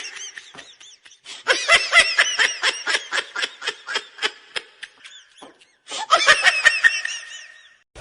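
Laughter in three bouts of rapid, high-pitched pulses, several a second, the middle bout the longest.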